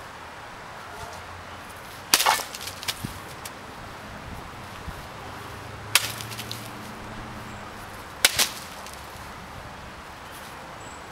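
Arming sword slicing through rolled tatami mat targets: a sharp cut about two seconds in, another about six seconds in, and a quick double strike a little after eight seconds. Smaller clatters follow the first two cuts.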